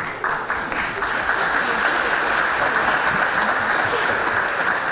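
Large audience applauding: a dense patter of many hands clapping that swells up about a quarter second in and holds steady.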